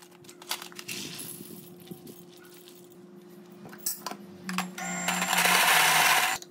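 Metal clinks and knocks of barista tools being handled, then a Saeco M50 coffee grinder running and grinding beans into a metal dosing cup for about a second and a half, loud and even, stopping abruptly near the end.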